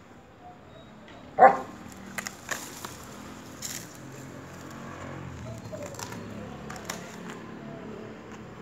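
A German Shepherd gives one loud, short bark about a second and a half in. Scattered crackles and snaps follow as it mouths and drags a dry palm spathe and its stalks across the grass.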